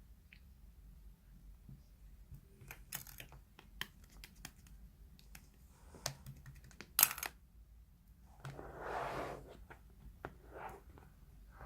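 Slime being played with by hand: irregular sticky clicks and small pops, with a longer squishy squelch about nine seconds in.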